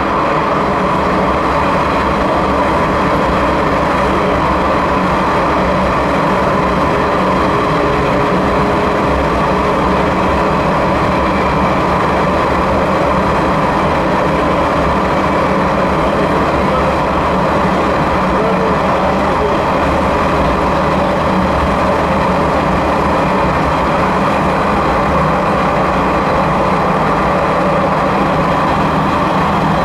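Sanriku Railway 36-100 series diesel railcar running steadily through a long tunnel. Its engine and wheels on the rails make a loud, unbroken running noise with no changes.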